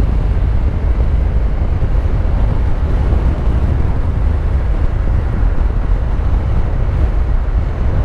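Wind and road noise from a Honda NC750X DCT motorcycle riding at speed, heard on the rider's camera microphone as a steady low rumble.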